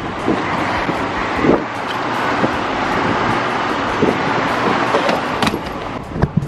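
Steady road traffic noise from passing cars, with a few knocks as a hard-shell suitcase is handled into a car boot.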